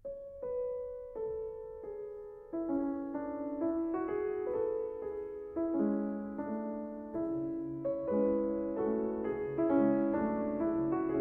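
Piano music: a slow melody of single notes that fills out into chords, with a bass line joining later.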